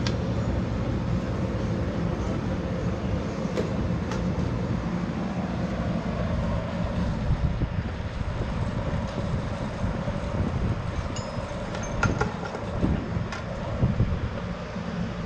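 Steady low mechanical hum over general background noise, with a few light clicks and knocks near the end.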